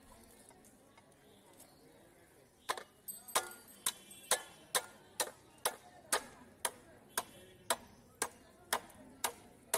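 A wooden stick beating a large catla fish head down onto a fixed curved floor blade (bonti) to chop through it: sharp knocks about two a second, starting about three seconds in, a few with a brief ring.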